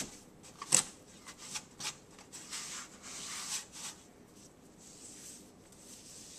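Handling noise: rubbing and scraping by hand, with a few sharp clicks, the loudest about three-quarters of a second in; it dies down to a faint hiss after about four seconds.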